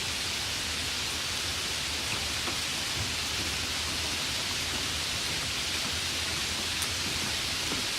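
Steady light rain falling, an even hiss with faint scattered drop ticks.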